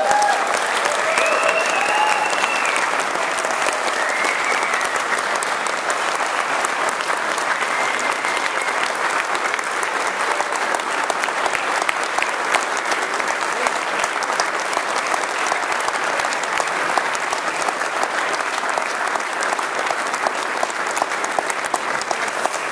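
Audience applauding steadily and at length, with a few whoops and cheers in the first few seconds.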